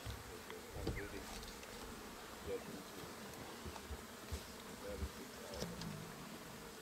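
Flies buzzing around an opened elephant carcass, several droning at slightly different, wavering pitches, with a few soft low thumps.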